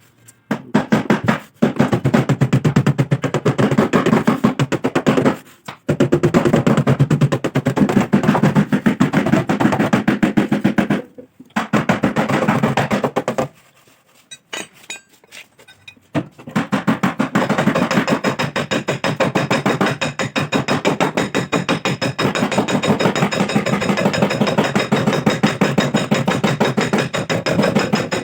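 Rapid, evenly spaced hammer blows on the sheet-metal quarter panel of a Maruti Suzuki Swift, dent repair in progress. The runs of strikes stop briefly a few times, with a longer pause about halfway through.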